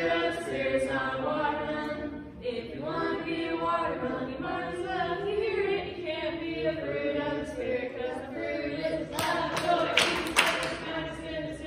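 Voices singing together, unaccompanied, with long held notes. A short burst of noise cuts across the singing about nine seconds in.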